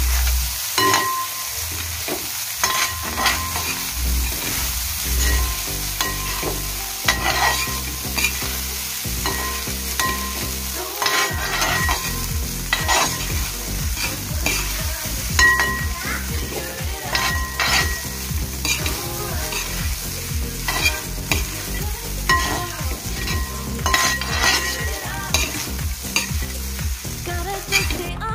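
A cooking utensil scraping and knocking against a metal pot while fried rice is stirred and tossed, in repeated strokes about one to two a second, over a steady sizzle of the rice frying.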